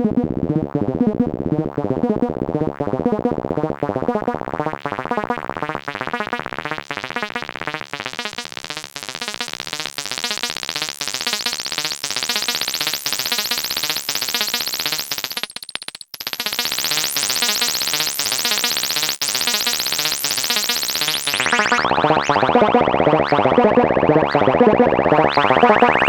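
Eurorack synthesizer notes played through the SetonixSynth Marsupial dual/stereo voltage-controlled filter, repeating at about three notes a second, each shaped by an ADSR envelope. The filter gradually opens so the tone grows much brighter over the first ten seconds, drops out for an instant about sixteen seconds in, then closes abruptly about five seconds later, leaving a darker, nasal mid-range tone.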